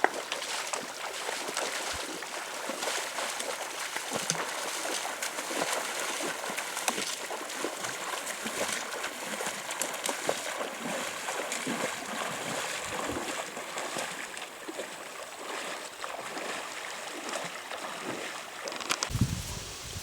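River water running steadily, with scattered faint ticks and a low bump near the end.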